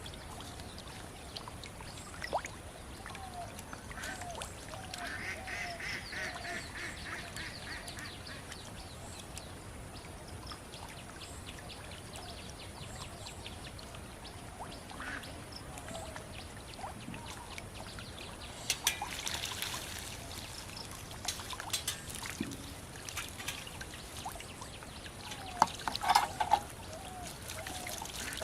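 Water trickling and splashing in shallow flood water, with short animal calls repeated in quick runs about four seconds in and again near the end.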